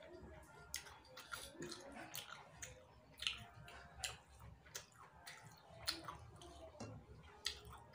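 Quiet chewing and wet mouth clicks of a person eating rice by hand, with soft squishes of fingers mixing rice on the plate; the clicks come irregularly.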